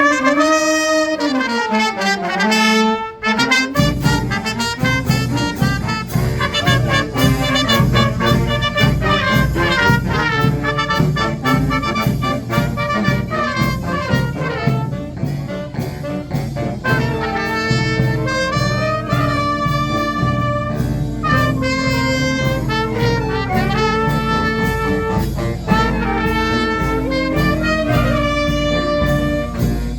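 A fanfarra, a brass and drum band, playing. An opening brass phrase slides up and down in pitch, and from about four seconds in the full band comes in with trumpets, trombones and drums on a steady beat.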